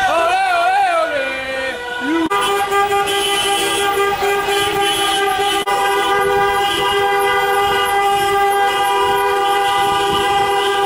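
Car horn held down as one long, steady blast, beginning about two seconds in. Before it, a wavering sound bends up and down in pitch.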